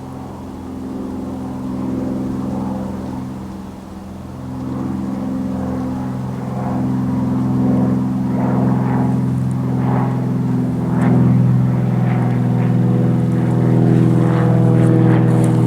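A motor engine droning steadily at an even pitch, growing louder over the stretch.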